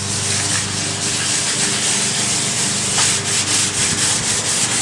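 Wet 800-grit sandpaper rubbing in circles over the epoxy-hardened surface of a foam RC airliner's nose: a steady scratchy sanding sound, with a faint low hum underneath.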